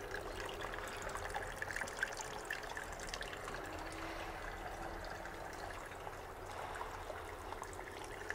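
Spring water trickling and splashing steadily from a stone-walled spring outlet.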